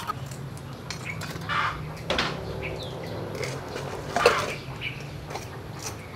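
Fish being washed by hand in a metal basin of water: small splashes and scattered knocks of hands and fish against the bowl, with a sharper knock about four seconds in.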